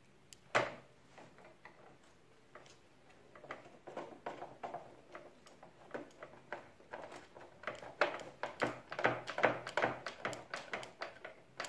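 A hand screwdriver driving in the screw that holds the evaporator of a split air conditioner's indoor unit: one sharp click about half a second in, then a run of irregular clicks and scrapes that grows busier in the second half.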